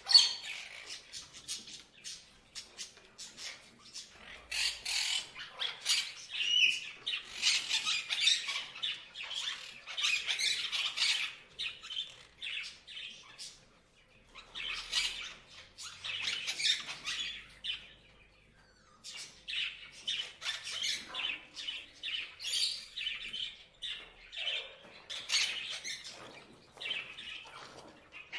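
Parrots chirping and squawking: a dense run of rapid, shrill calls, with brief lulls.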